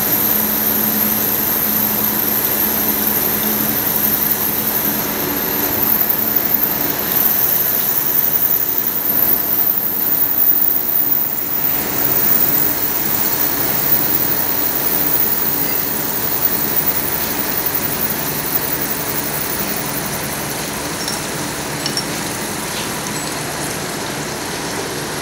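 Traub-type automatic lathe running steadily while cutting metal pipe into rings, a continuous machine hum with coolant splashing over the tooling.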